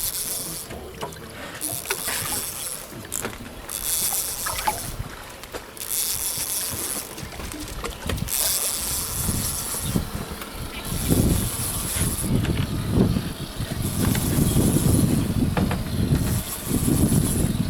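Wind buffeting the microphone and water noise aboard a small fishing boat. Bursts of high hiss come and go, and the low rumbling grows heavier in the second half.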